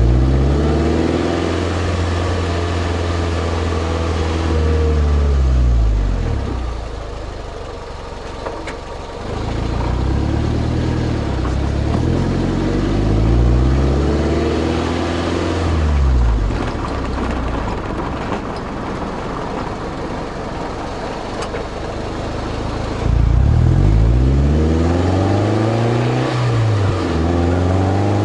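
2003 Toyota MR2 Spyder's four-cylinder engine heard through its Powerhouse Amuse Titanium Extra cat-back exhaust, recorded close to the tailpipe. The revs rise and fall several times, with quieter, lower-pitched stretches between. Near the end the revs climb sharply, then dip briefly, like a gear change, and rise again.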